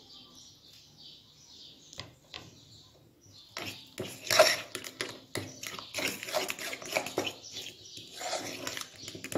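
Metal spoon stirring a thick garlic sauce of labneh and mashed potato in a bowl: quiet at first, then, from about three and a half seconds in, irregular scraping and clinks of the spoon against the bowl, the loudest clink a little after four seconds.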